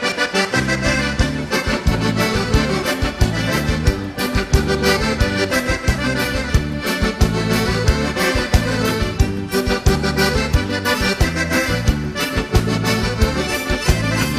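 Gaúcho accordion (gaita) music: an instrumental passage with the accordion playing the melody over a bouncing bass line and a steady dance beat.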